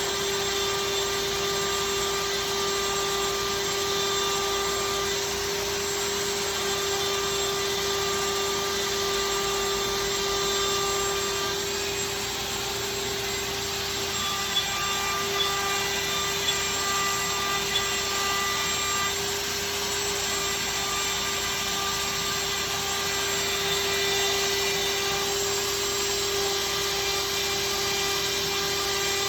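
Avid CNC router running steadily, a constant machine whine over cutting noise, with a few sharp ticks around the middle.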